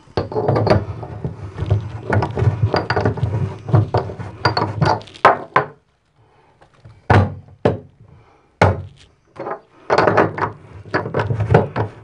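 Knocks, thuds and rubbing as a chrome bathtub drain flange, its lip packed with plumber's putty, is threaded into the drain and metal wrenches are handled against the tub. There is a dense stretch of handling noise, a short pause about halfway, several separate sharp knocks, then more dense handling near the end.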